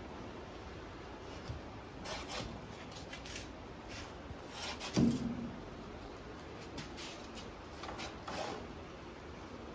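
Intermittent scraping and rubbing of a metal earth rod being worked by hand into wet soil, with a dull knock about five seconds in.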